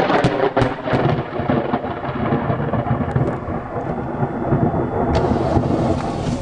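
Thunder from an extremely close lightning strike: sharp cracks in the first second, then a loud, rolling rumble that slowly fades.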